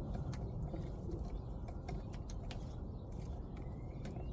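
Scattered small clicks and taps of a screwdriver working the screw out of a worn zinc anode on a boat's trim tab, over a steady low outdoor rumble.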